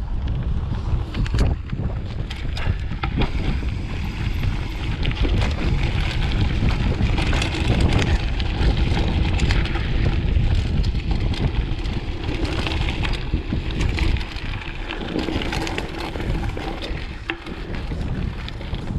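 Mountain bike ridden over a dirt track: tyres rolling on the ground and the bike rattling and clicking over bumps, under a heavy rumble of wind buffeting the microphone.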